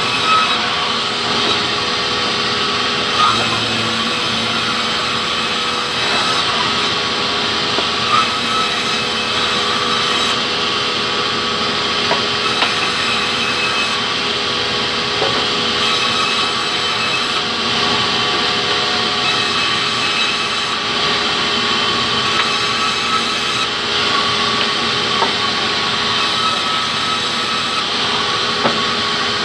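Sawmill band saw running steadily and ripping a hardwood log into boards, with a few short knocks scattered through.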